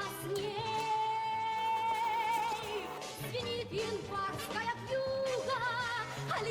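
Background music: a song with a singer holding long notes with vibrato over a repeating low accompaniment.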